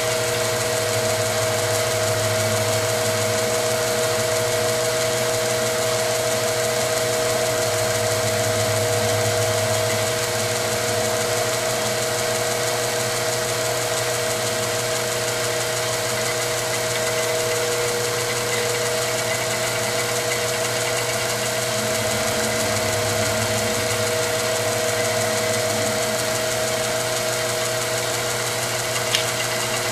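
Milling machine running with an end mill cutting into a steel-coloured shotgun brake tube: a steady machine whine with a low hum that swells now and then, and a single short tick near the end.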